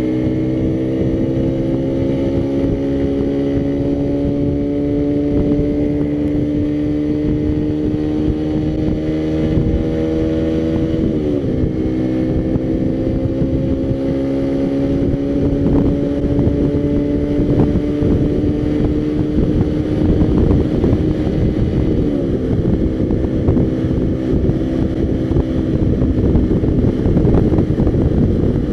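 Motorcycle engine running under way, its pitch climbing slowly as the bike gathers speed, then dropping sharply at an upshift about eleven seconds in and climbing again. Wind rush and buffeting on the microphone grow louder through the second half.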